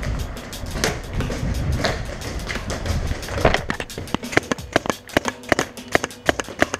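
Paintball markers firing: a rapid, uneven string of sharp pops, several a second, starting about halfway in. Before that come scuffling thumps of a player moving between bunkers.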